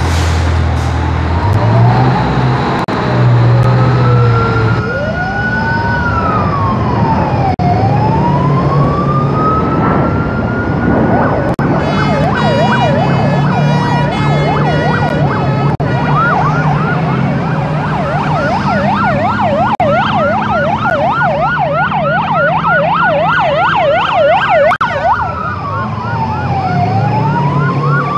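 Sirens of airport crash fire rescue trucks sounding together over diesel engine rumble as the trucks turn out. Slow rising and falling wails overlap at first; about halfway through a fast yelp takes over for several seconds, then the slow wail returns near the end.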